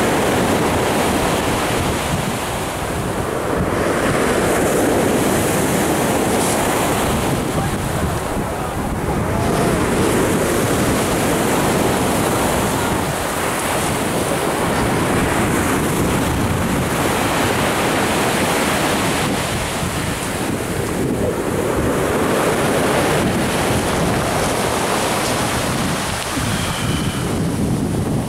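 Surf breaking on a pebble shore: a continuous wash that swells and eases every several seconds, with wind buffeting the microphone.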